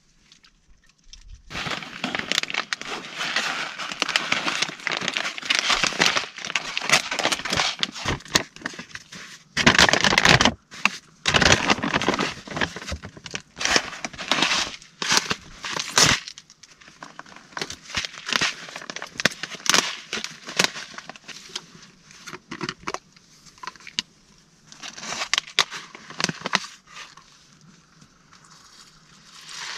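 Plastic food packaging crinkling and crackling as it is handled and opened. The sound is densest in the first half, then comes in scattered handfuls, with a last flurry near the end.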